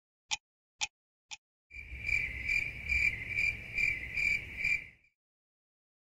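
Countdown timer sound effect: three last clock ticks, two a second, then an alarm ringing in quick high pulses, about two and a half a second, for some three seconds to signal that time is up. The alarm stops abruptly.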